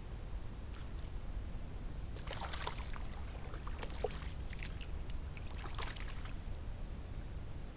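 A small channel catfish being reeled in to the bank, with short bursts of splashing and rattling about two, four and six seconds in. A steady low rumble runs underneath.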